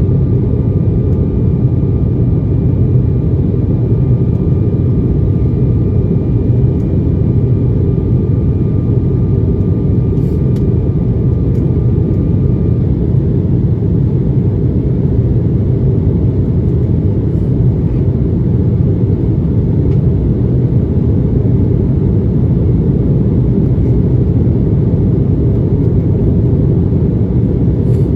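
Cabin noise inside an Embraer ERJ 145 in flight: a steady, loud low roar from its rear-mounted Rolls-Royce AE 3007 turbofans and the airflow. A faint thin whine above it stops about halfway through.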